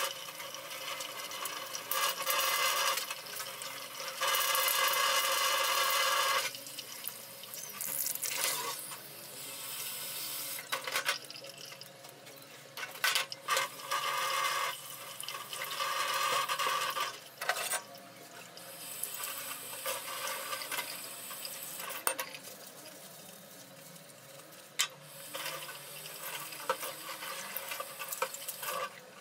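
Kitchen tap running into a stainless-steel sink while raw chicken fillets are rinsed in a plastic tray. The rush of water rises and falls as the stream hits hands, plastic and meat. Near the end a grill pan is washed under the tap, and there are scattered sharp clicks and knocks from handling.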